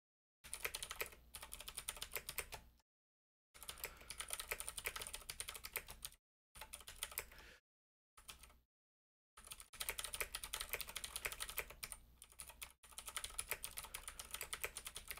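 Typing on a computer keyboard: rapid keystrokes in spurts of a few seconds, with short pauses between.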